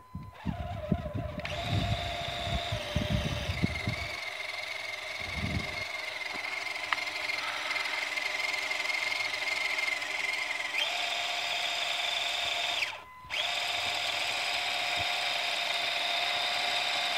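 HG P402 RC crawler's electric motor and gearbox whining steadily as it drives through snow, with uneven low crunching in the first four seconds. The whine steps up in pitch about eleven seconds in, cuts out for a moment a couple of seconds later, then carries on.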